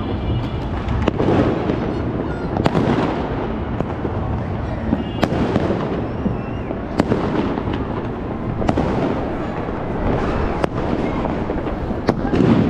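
New Year's fireworks going off all over the city: sharp bangs every second or two, near and far, over a continuous din of distant explosions and crackle.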